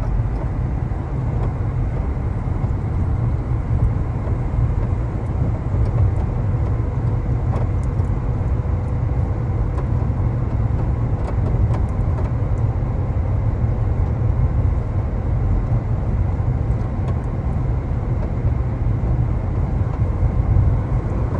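Subaru Solterra electric SUV at highway speed: steady road rumble with faint, irregular knocks from underneath. The knocking is typical of something loose flapping against the underbody, which the owner places on the driver's side.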